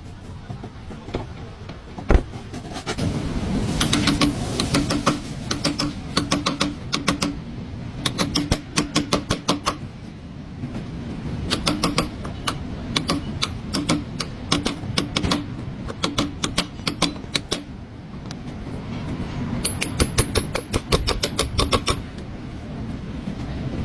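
Bursts of rapid clicking from a ratchet wrench being worked on a car's rear differential, several runs of quick clicks with short pauses between them.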